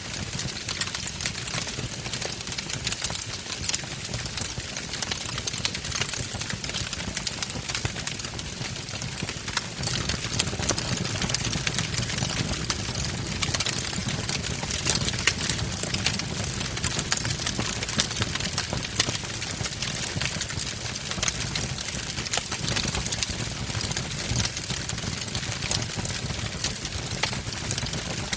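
Wood fire burning in a fireplace: logs crackling with many small sharp pops over a steady low rumble of the flames, which grows a little louder about ten seconds in.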